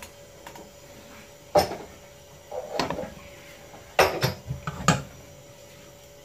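Metal skewer rods knocking against a pan and the stove's grate as a skewered whole chicken is set in place: a sharp clank about one and a half seconds in, a short rattle, then four quick clanks between about four and five seconds.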